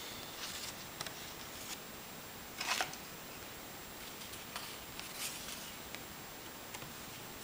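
Paper sheets rustling as they are handled: a kit's printed instruction sheet is set aside and a decal sheet picked up, in a few short rustles, the loudest about two and a half seconds in. Steady hiss underneath.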